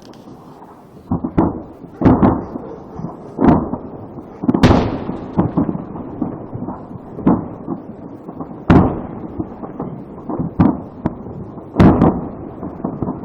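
Stored ammunition going off in a burning ammunition depot: an irregular run of explosions and pops, with heavier blasts about four and a half, eight and a half and twelve seconds in.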